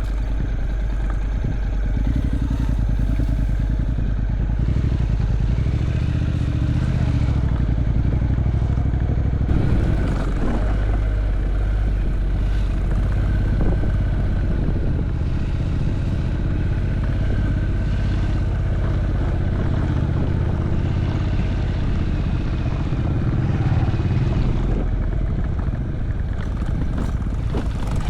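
Motorcycle engine running steadily while the bike is ridden, with small rises and falls in level along the way.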